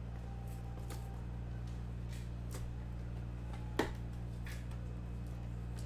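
Hands handling cardboard trading-card boxes: a few faint taps and scrapes, with one sharper tap a little under four seconds in, over a steady low electrical hum.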